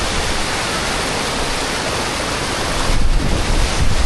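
Steady rushing of a large waterfall, about 25 m high, heard up close, with wind gusting on the microphone; the gusts grow stronger about three seconds in.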